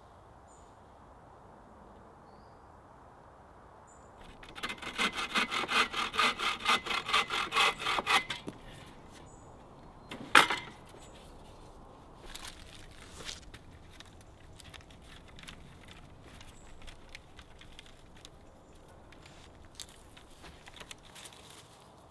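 Hand saw cutting through a wooden pole, about three strokes a second for about four seconds. A couple of seconds later comes a single sharp crack, the loudest sound, followed by fainter scattered knocks and scrapes of wood being handled.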